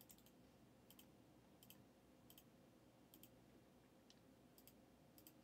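Near silence broken by faint, sharp clicks from working a computer, about one every second, many in quick pairs.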